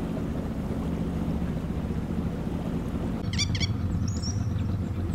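An engine idling with a steady low hum. A bird gives a few quick, high, falling chirps about three seconds in.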